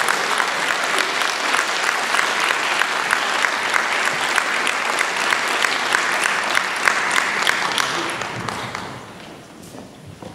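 Audience applauding with many hands clapping steadily, then dying away near the end.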